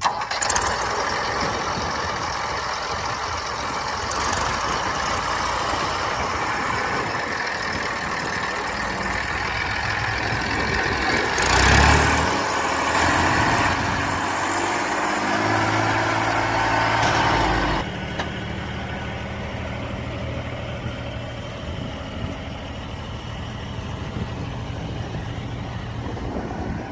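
Diesel engine of heavy earth-moving machinery running, with a loud surge in revs about twelve seconds in and the level dropping back about six seconds later to a steadier run.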